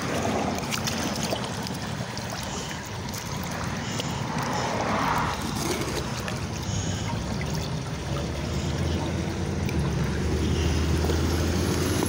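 Water trickling and gurgling steadily along a curb gutter as a clogged drain clears. A low vehicle engine hum grows louder near the end.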